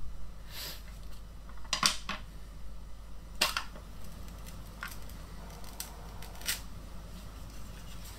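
Plastic housing of a Yongnuo YN-560 flash head being pulled apart and handled: a scattering of sharp plastic clicks and knocks, the loudest a quick double click about two seconds in.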